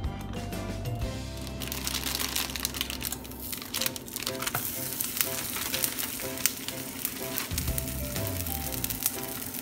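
A frozen paratha sizzling in a hot nonstick frying pan, a crackling hiss that sets in a second or two in and keeps going, with the plastic film crinkling as it is peeled off the dough. Background music plays throughout.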